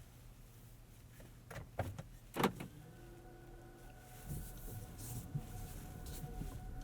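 A few sharp clicks in the cabin of a Toyota Highlander Hybrid. Then a steady whine comes in as the hybrid pulls away quietly, with low road rumble building.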